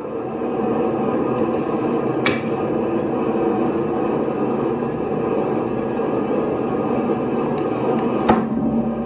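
Steady rushing noise of a running forge, broken by two sharp metal clanks, one about two seconds in and a louder one near the end.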